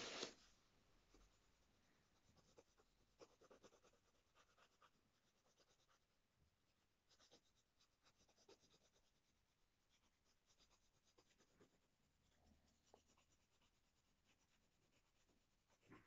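Faint scratching of a coloured pencil shading on paper, in runs of quick back-and-forth strokes.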